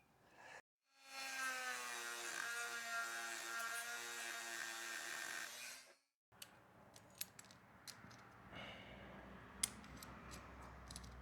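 Power grinder running for about five seconds, grinding metal on the motorcycle chain, with a steady whine that sags slightly in pitch under load and stops abruptly. Faint clicks and light metal ticks from handling the chain and tool follow.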